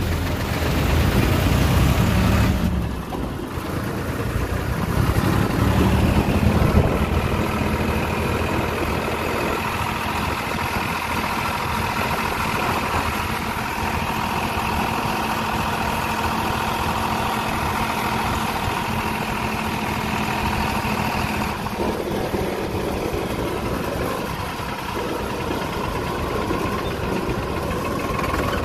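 Tractor's diesel engine running steadily while the tractor drives along.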